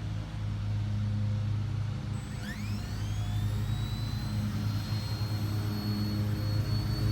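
Electric RC helicopter motor spooling up: a high whine rises steeply about two and a half seconds in, then holds steady, over a steady low hum.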